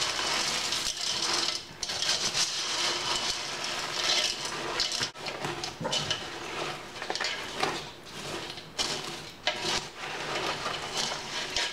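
A spoon stirring pretzel sticks, O-shaped cereal and M&M's through melted white candy coating in a large metal pot. The dry pieces rustle and crunch continuously, with frequent scrapes and clicks of the spoon against the pot.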